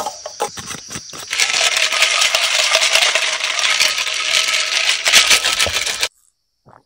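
Hot coffee poured over a tumbler packed with ice. A few ice clinks come first, then from about a second in a steady pour with the ice crackling and clinking as the hot coffee hits it, cutting off suddenly near the end.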